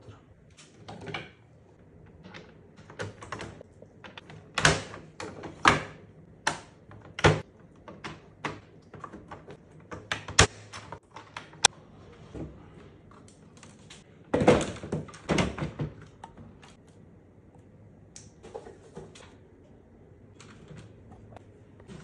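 Plastic incubator tiers and tray drawers being handled and fitted together: irregular clacks, knocks and thuds of hard plastic, with a denser run of knocks about two-thirds of the way through.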